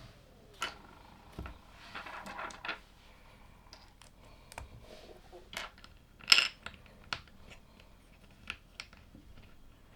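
LEGO plastic pieces clicking and tapping as they are handled and pressed together, in scattered sharp clicks with a brief scratchy rustle about two seconds in and the loudest click about six seconds in.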